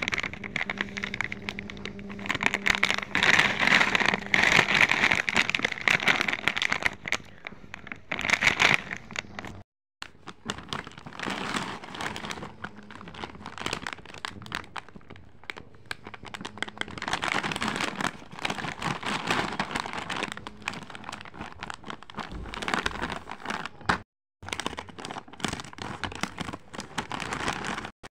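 Crinkling and crackling of a foil-lined Bingo potato chips packet being handled and turned over in the hands. The crinkling stops briefly twice, about ten seconds in and again near the end.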